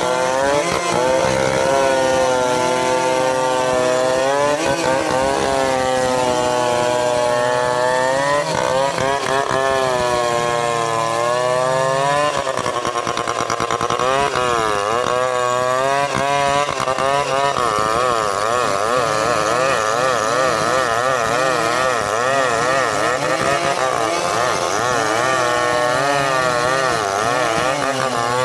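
Petrol chainsaws, one of them a Stihl MS381, running loud and continuously, their engine pitch rising and falling as the chains load and unload in the wood of a large log.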